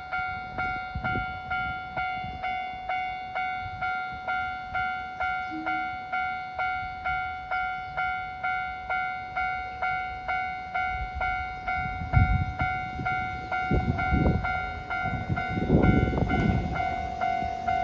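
Japanese level crossing warning bell ringing steadily, about two strikes a second. About two thirds of the way in, a Sangi Railway 801 series electric train adds a low rumble as it passes, loudest near the end.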